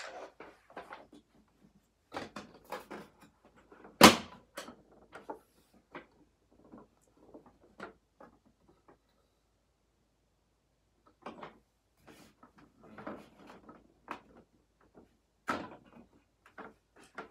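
Hard plastic toy parts being handled: scattered clicks and knocks, with one sharp, loud knock about four seconds in and another loud one near the end.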